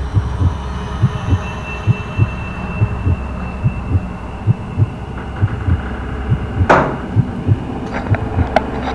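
Steady rhythm of low, dull thuds, about three a second, over a low hum, with one sharp knock about seven seconds in.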